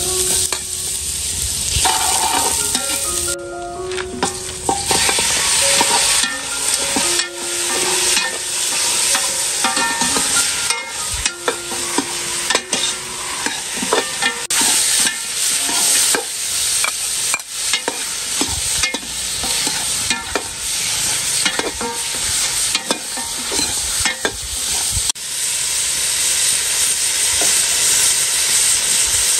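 Chopped garlic sizzling in hot oil in an aluminium pot, with a metal utensil scraping and knocking against the pot as it is stirred. Near the end the sizzle turns fuller and more even as pieces of pig leg go into the pot.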